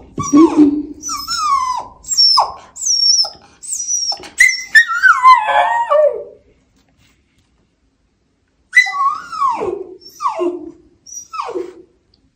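Overexcited dog whining in protest at being held back on its leash: a run of high cries falling in pitch for about six seconds, then a pause and three or four more near the end.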